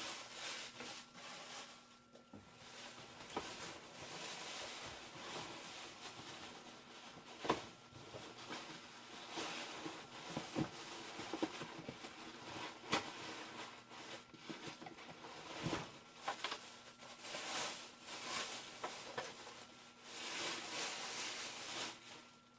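Rustling and crinkling of packaging with scattered light clicks and knocks as parts are taken out of a box.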